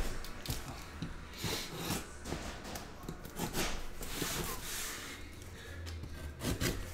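Cardboard shipping case being opened: its tape and flaps scrape and rustle in a series of short, irregular scratchy strokes.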